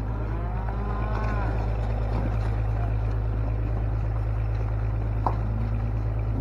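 An engine running at a steady idle, a constant low drone. A single sharp click comes about five seconds in.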